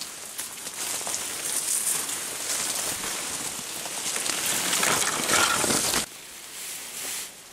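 Leaves and branches rustling and scraping close against the microphone as someone pushes through dense brush. The noise stops suddenly about six seconds in, followed by a shorter, fainter rustle.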